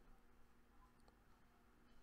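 Near silence: faint room tone with a steady low hum and a faint click about halfway through.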